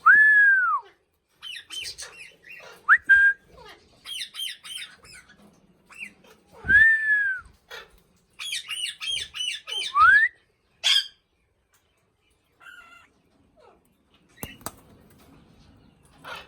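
Pet raw parrot (Alexandrine parakeet) calling: two loud arched screeches, one at the start and one about seven seconds in, broken up by runs of quick chirps and short upward-sweeping whistles. After about eleven seconds it goes mostly quiet apart from a few sharp clicks.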